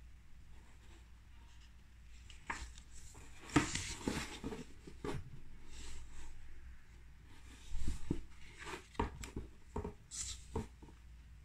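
Pages of a sketchbook being turned and pressed flat by hand: irregular paper rustles and swishes with a few soft taps, loudest about three and a half seconds in and again around eight to nine seconds in.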